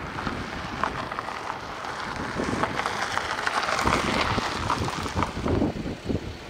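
A car driving up over gravel, its tyres crunching with many small crackles, louder as it comes closer, peaking about four seconds in. Wind buffets the microphone throughout.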